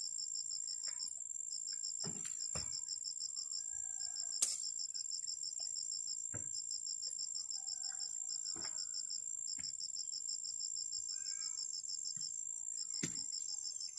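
Insects chirping in a steady, high, rapidly pulsing chorus that comes in trains of a second or two over a constant high whine. A few dull thuds break in, from a long pole tamping earth around a wooden post.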